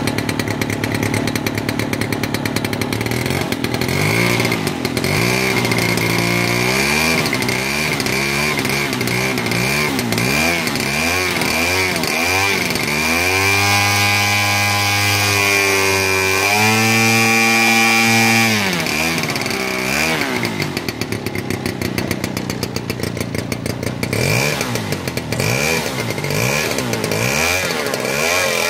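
Super Tigre model-aircraft glow engine running continuously at speed on a model plane, a steady buzzing note with a brief dip in pitch about halfway through. It is running well.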